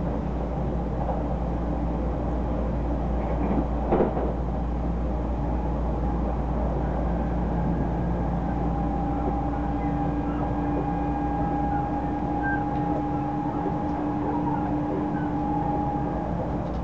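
Odakyu Line commuter train running at speed, heard from inside the passenger car: a steady rumble of wheels on rail, with a brief knock about four seconds in. About halfway through, a steady two-tone hum comes in and holds until near the end.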